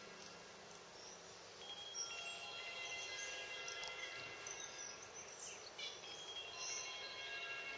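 Soft background music of overlapping, sustained chime-like tones at several pitches.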